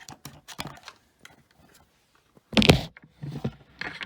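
Handling noise on a desk: a few light clicks and taps, then one loud thump about two and a half seconds in, followed by a couple of softer knocks.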